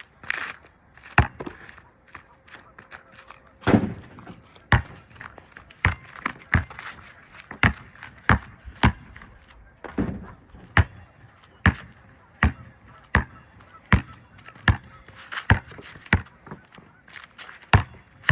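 A basketball being dribbled, bouncing at a steady pace of roughly one bounce every three-quarters of a second, with geese honking now and then.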